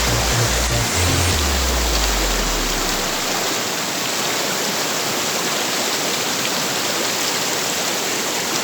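Steady rush of water falling and running at a waterfall, an even roar with no break in it.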